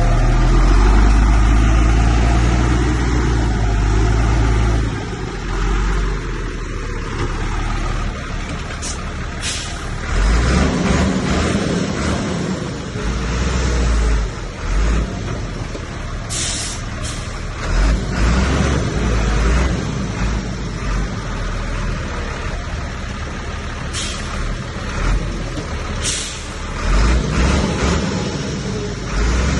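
Heavy diesel earthmoving machinery running loud and low, the rumble rising and falling as it works. A few short high-pitched bursts cut in, about a third of the way in and again later.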